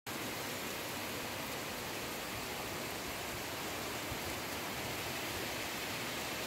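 Heavy rain pouring steadily: an even, unbroken hiss of rain falling on trees and roofs.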